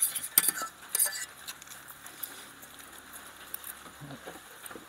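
Metal forks clinking and scraping against enamel pots while noodles are eaten from them: a cluster of sharp clinks in the first second or so, then lighter scattered taps.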